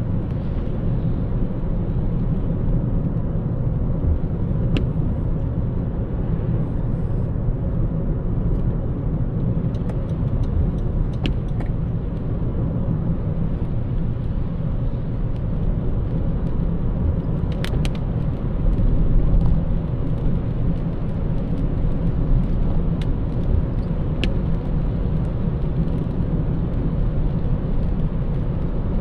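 Steady road noise of a car driving through city traffic, tyres and engine running evenly, with a few faint clicks now and then.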